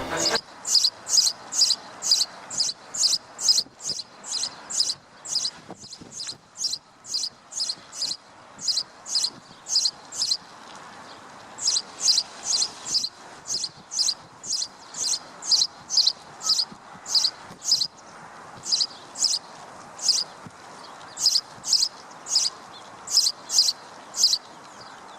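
Repeated short, high chirping calls, about two to three a second, in runs broken by a few short pauses, over a faint steady hiss.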